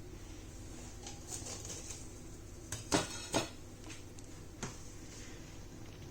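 A few light clinks and knocks of kitchen utensils against dishes, two close together about three seconds in and a softer one shortly after.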